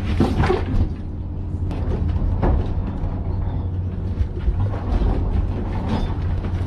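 Steady low drone of a fishing boat's engine, heard from inside the wheelhouse, with scattered knocks and clatter over it.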